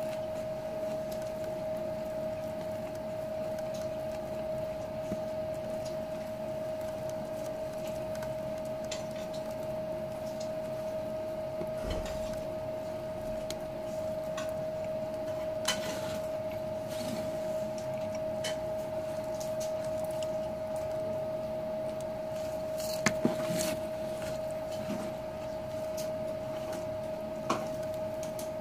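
Quiet eating by hand from a plate: scattered small clicks and taps, with chewing, over a steady high-pitched hum. A pair of sharper clicks comes well past the middle.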